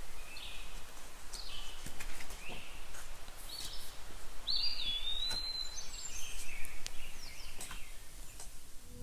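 Woodland ambience sound effect: scattered bird chirps and calls over a faint steady background, with one clear, held whistled note about four and a half seconds in.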